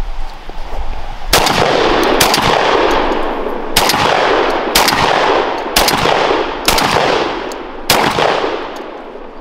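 Beretta 1301 semi-automatic 12-gauge shotgun fired about seven times in quick succession, roughly one shot a second, each blast ringing out before the next.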